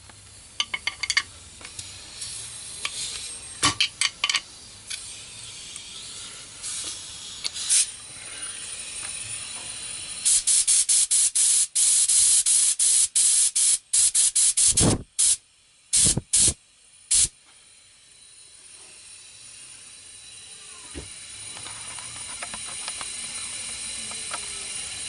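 Compressed-air blow gun on an air hose firing short blasts of air: scattered bursts at first, then a rapid run of blasts about ten to fifteen seconds in. After that a steady, faintly whistling hiss of escaping air grows louder toward the end.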